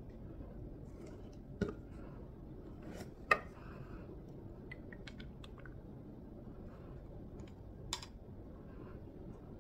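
Small clicks and taps of a Dotmod dotStick Revo vape coil and clear tank being handled and fitted together. The sharpest click comes a little over three seconds in, with another near the end.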